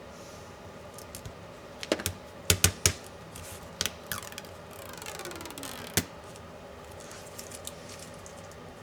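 Sharp clicks and taps of laptop parts and tools being handled during disassembly: a quick cluster of clicks about two to three seconds in, a couple more around four seconds, then a scraping slide falling in pitch that ends in a final click.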